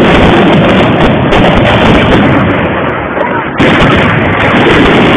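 Fireworks display: a dense, continuous barrage of rapid, very loud bangs from many shells bursting at once, easing briefly just after three seconds before another loud surge.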